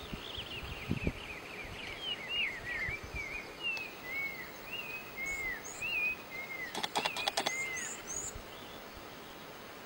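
Wild birds calling: a long string of short, arched whistled notes, with higher chirps mixed in, and a quick run of sharp clicks about seven seconds in.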